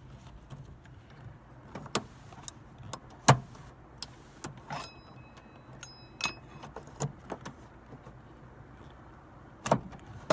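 Clicks and knocks of a crank removal tool and fingers working a car door's manual window crank handle off its shaft, with a few short metallic pings from the crank's metal retaining clip; the sharpest knock comes about a third of the way in, with more near the end. A steady low hum sits underneath.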